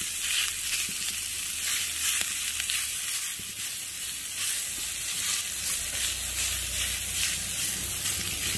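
Diced pork belly sizzling in a hot pan as its fat begins to render out, with small crackles and the pieces being stirred with wooden chopsticks.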